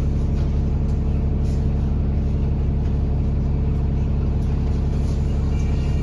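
London bus engine running with a steady low drone. Near the end a faint, high beeping tone starts.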